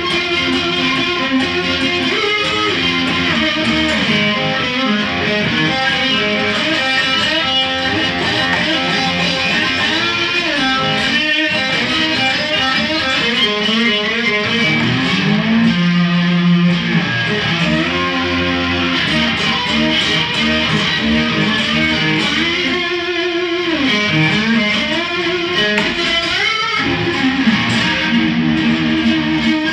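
Guitar music, mostly electric guitar, with notes that slide up and down in pitch.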